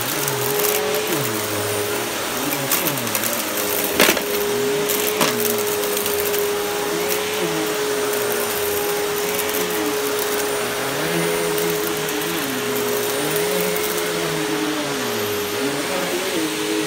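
Riccar bagged upright vacuum cleaner running over a rug. It has a steady motor whine over lower tones that rise and fall again and again as it is pushed back and forth, with a sharp click about four seconds in.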